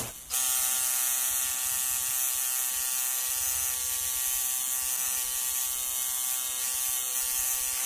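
Electric tattoo machine buzzing steadily.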